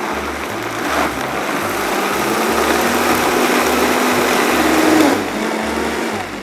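Countertop blender with a stainless steel base running steadily, puréeing berries and coconut water into a smoothie. Its motor pitch climbs a little toward the end, then it winds down and stops shortly before the end.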